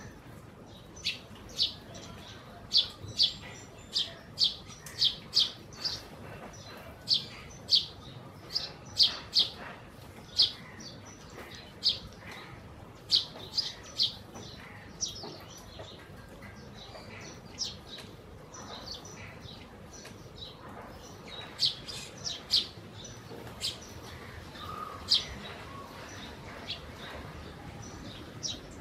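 Eurasian tree sparrows chirping: short, sharp, high chirps, coming about two a second through the first half and more scattered after that.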